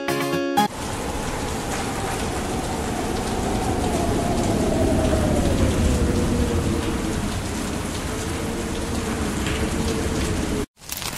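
Steady rushing noise with a deep rumble underneath, like heavy rain or a storm, with a faint tone slowly falling in pitch; it cuts off suddenly near the end. Guitar music ends just before it, within the first second.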